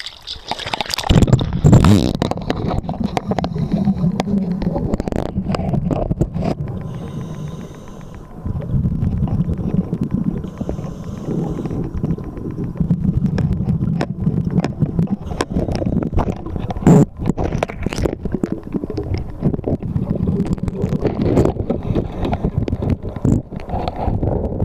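Muffled underwater rumble and water movement against a camera held under the surface of a pool, with scattered knocks and scrapes as the camera and a concrete cinder block are handled; one sharp knock stands out about two-thirds of the way through.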